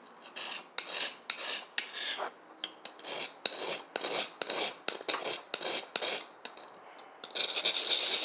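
A steel knife blade being sharpened: separate rasping strokes, about two to three a second. Near the end they give way to a faster, continuous scraping. The blade is getting close to sharp.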